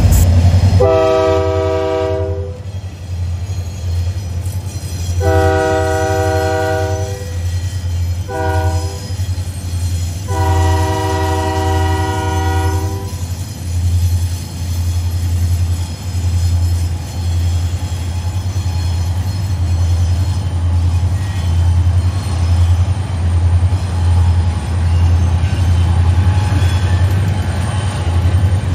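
Diesel freight locomotives' air horn sounding the grade-crossing signal: long, long, short, long. Under it is a steady low rumble from the locomotives and freight cars passing, which carries on after the horn stops about halfway through.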